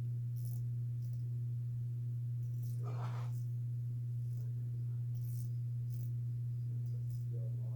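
A steady low hum throughout, with a few faint, short ratcheting sounds from the ratcheting box end of a 1/2 inch flex-head combination wrench being worked by hand; the mechanism is grabbing rather than clicking smoothly.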